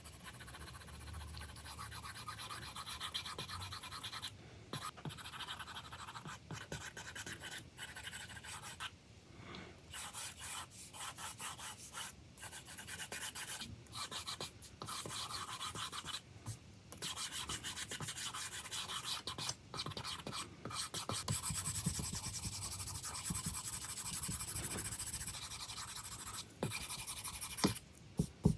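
A stylus scratching and rubbing across an iPad screen in a steady run of drawing strokes, each broken off by a brief pause.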